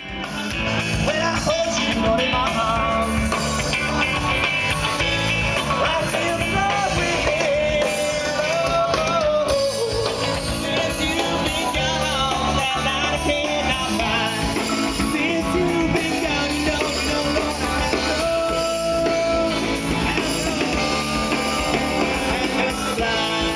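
Rock music with a singing voice over guitar and drums.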